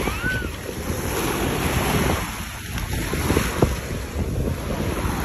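Small waves washing onto the sand at the water's edge, a steady rushing wash, with wind buffeting the microphone in gusts.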